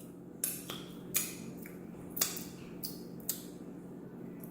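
Eating crispy fried chicken wings close to the microphone: about seven short, sharp crunches and mouth clicks at irregular intervals, over a steady low hum.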